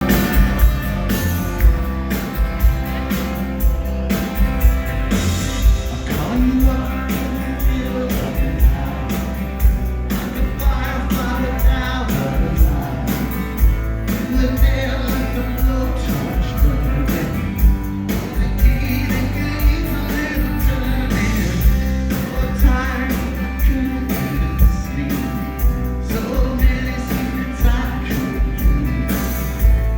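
Rock band playing live, with singing over guitars and a steady drum beat.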